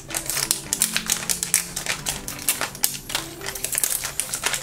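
Paper sticker wrapper being peeled and torn off a plastic Zuru 5 Surprise Mini Brands capsule ball: a rapid, irregular run of small crackles and crinkles.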